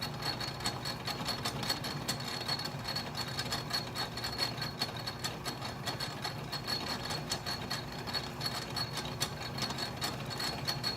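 Atlas metal lathe running under a facing cut, the tool cutting across the plate's face with a steady high whine and a constant fine crackle of chips.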